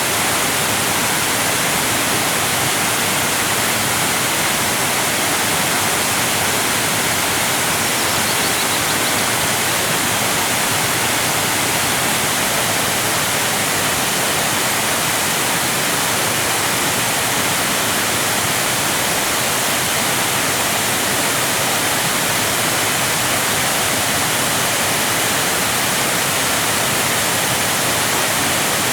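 Waterfall: water falling in a steady, dense rush with no breaks.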